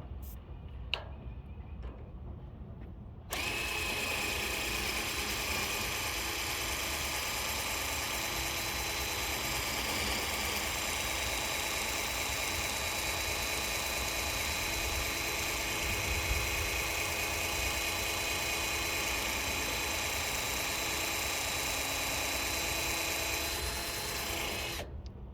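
Power drill running at a steady speed for about twenty seconds as a steady whine, starting abruptly about three seconds in and stopping shortly before the end. The bit is not suited to metal and is failing to cut the hole.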